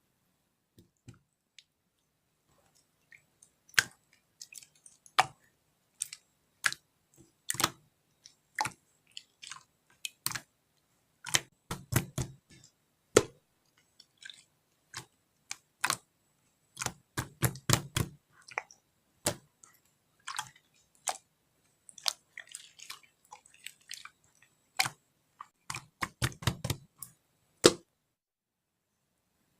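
Slime being pressed and worked by hand, giving irregular sticky pops and clicks, some in quick clusters.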